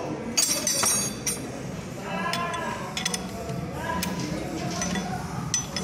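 Metal parts clinking sharply a few times in the first second as the centrifugal clutch housing of a Suzuki Shogun 125 is fitted onto its shaft by hand, followed by a person's voice from about two seconds in.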